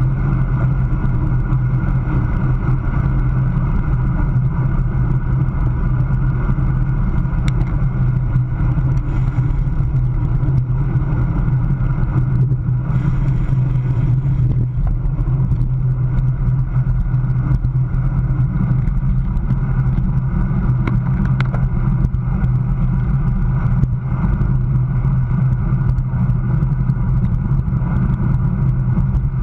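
Steady wind rush and low rumble on the microphone of a camera mounted on a road bike's handlebars, with the bike racing at about 24 mph.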